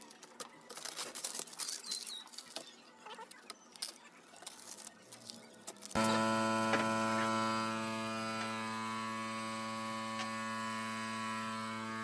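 Masking tape and paper being peeled and crumpled off a painted speaker box, light crinkling and clicks. About halfway through, a loud steady hum starts suddenly and holds without change.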